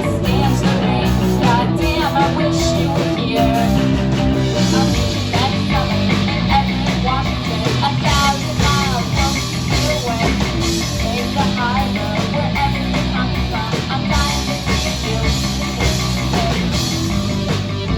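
Live punk rock band playing loud: distorted electric guitars, bass and drums.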